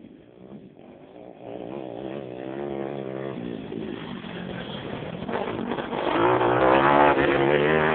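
Pit bike engine revving up and down, faint at first, growing much louder about a second and a half in and loudest near the end.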